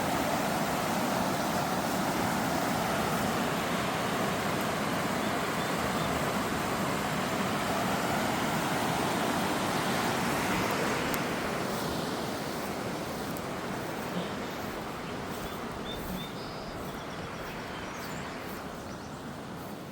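Road traffic noise: a steady rushing haze, loudest in the first half, with a vehicle sweeping past about eleven seconds in and the noise fading away afterwards.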